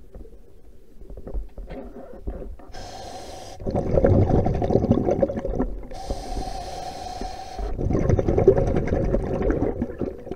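Scuba diver breathing through a regulator underwater: a short hissing inhale, then about two seconds of exhaled bubbles gurgling out, twice.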